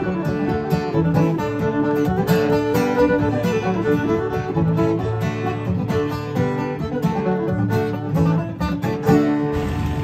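Live bluegrass string band playing: fiddle bowing a melody over strummed acoustic guitar, with banjo picking.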